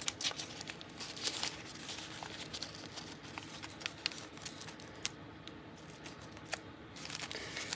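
Painted paper crinkling and rustling under fingers as it is pressed and smoothed down onto a glued journal page, with many small scattered crackles.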